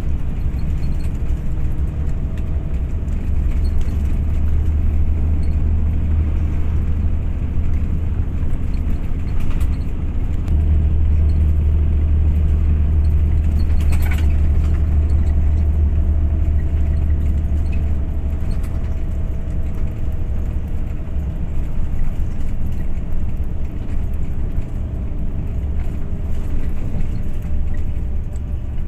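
A motor vehicle running, a steady low rumble that grows a little stronger partway through, with a faint steady tone above it and a few light clicks.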